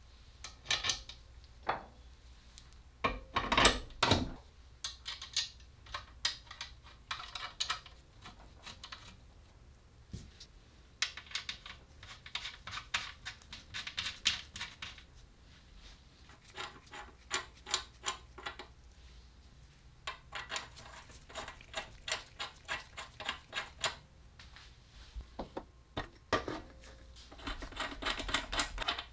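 Steel hardware being fitted to a steel tank by hand: clinks and knocks of bolts, nuts and pipe fittings, the loudest a few knocks about three seconds in, and several runs of rapid metallic clicking as fasteners are tightened.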